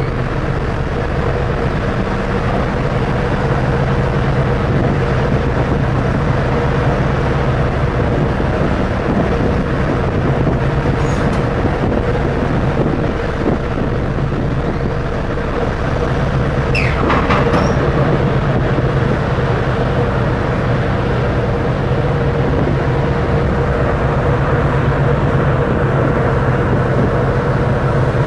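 Steady drone of a large car ferry's diesel engines and propellers working as the ship pulls away from its berth, a constant low hum and a steady mid tone over the rushing noise of churned water.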